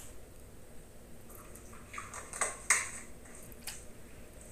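Kitchen clatter: a few sharp clinks and knocks of dishes and utensils, bunched between about two and four seconds in, the loudest a little under three seconds in.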